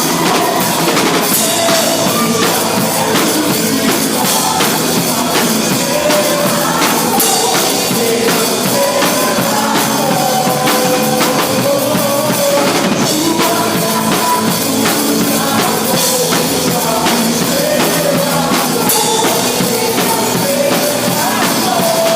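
Rock-style band music played loud and steady: a drum kit keeping a busy, even beat, with a melody line wavering above it.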